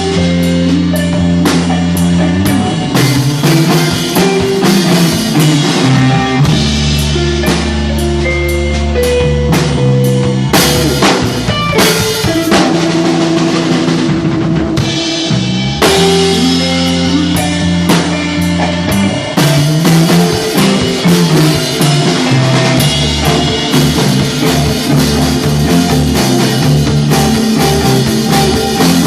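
Stoner rock band playing loud live music: a drum kit hits steadily under held bass and guitar notes.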